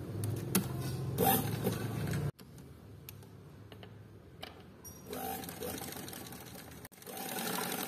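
Old domestic sewing machine stitching a seam through folded cotton, running steadily for about two seconds and then stopping abruptly. After that there are only a few faint clicks.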